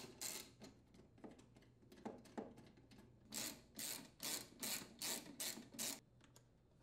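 Socket ratchet clicking as it unthreads a fuel tank mounting bolt: a few scattered clicks at first, then a regular run of about three ratcheting strokes a second, stopping near the end.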